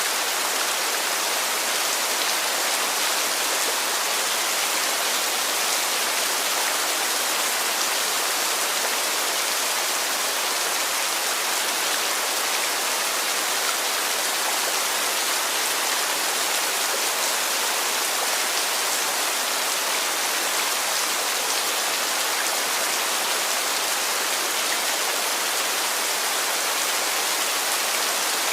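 Heavy rain falling steadily, an even hiss of drops with no breaks or changes.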